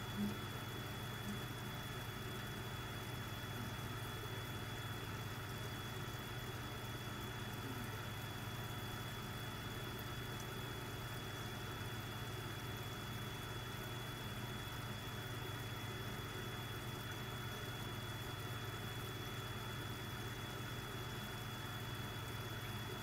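Steady hum of aquarium equipment running, with a thin, constant high whine above it.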